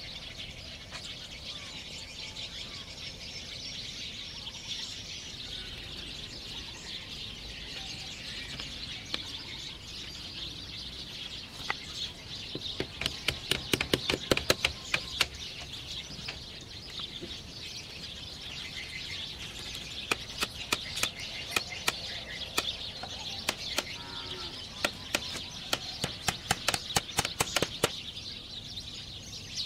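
Bamboo roof strips being knocked into place with a hand tool: runs of sharp knocks, several a second, in a short spell in the middle and a longer one in the later part. Birds chirp steadily in the background.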